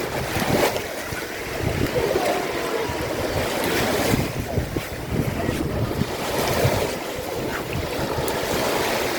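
Sea waves washing ashore, with wind buffeting the microphone.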